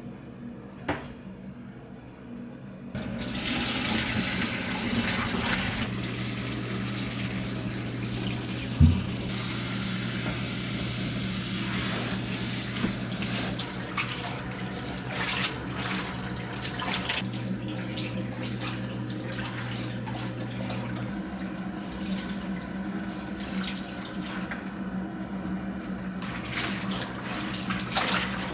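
Kitchen tap running into a sink. It starts about three seconds in, with light clatter and one sharp knock near the middle.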